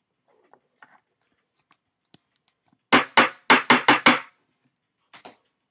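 A card slid into a rigid clear plastic toploader with a faint rustle, then a quick run of about six sharp knocks in a second and a half as the toploader is tapped against a wooden tabletop, and one lighter knock near the end.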